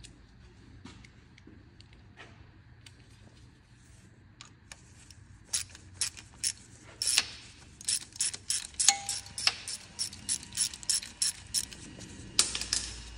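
Socket ratchet clicking as it undoes a bolt on the gearbox bellhousing, a stage of removing the gearbox for a clutch change. Faint scattered clicks at first, then from about five seconds in loud sharp clicks in quick irregular runs, one per return swing of the handle.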